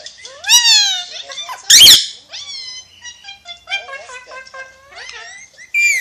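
Ringneck parakeet chattering in a run of short whistled calls that slide up and down in pitch, with a loud harsh squawk about two seconds in and another loud call near the end.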